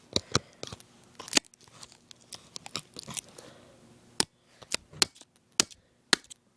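A saw striking and scraping at a broken iPod touch, giving about a dozen sharp, irregular knocks and clicks.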